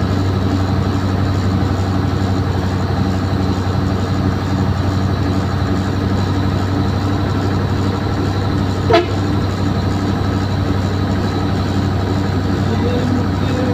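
Heavy truck's diesel engine running steadily while driving, heard from inside the cab. About nine seconds in comes one very short toot of the horn.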